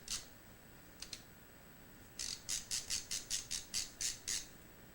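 Ratcheting mechanism of an LTT x Noctua multi-bit screwdriver clicking as the handle is turned, a quick run of about a dozen sharp clicks, roughly five a second, starting about two seconds in.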